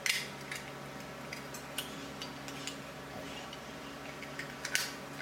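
Scattered light clicks and clinks of wiring and small parts being handled and pressed into a metal lamp base, a dozen or so irregular taps with the sharpest ones just after the start and near the end.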